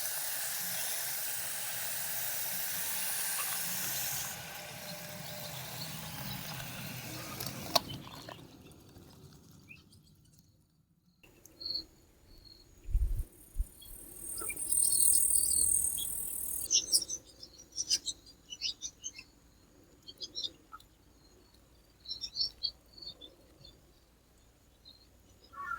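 Water spraying with a steady hiss that fades out over the first several seconds. After a short pause come a few knocks and a brief high hiss, then crickets and other insects chirping in short scattered bursts.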